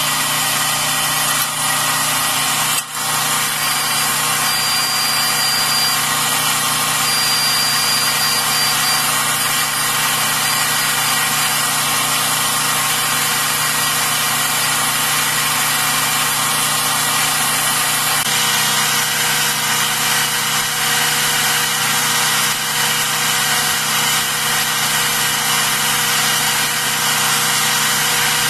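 Belt grinder running steadily while a steel knife blade forged from an Allen wrench is ground against its abrasive belt. The sound dips briefly about three seconds in.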